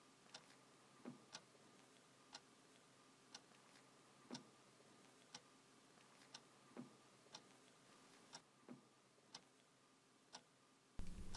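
A clock ticking faintly in a quiet room, one tick a second, with a few irregular, slightly louder clicks in between.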